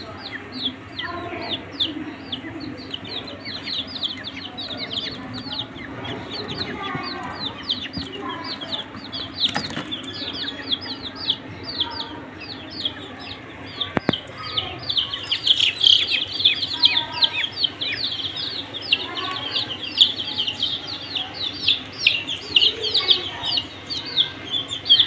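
A group of baby chicks peeping without a break, many short high cheeps that drop in pitch and overlap each other. The peeping grows louder and busier a little past halfway.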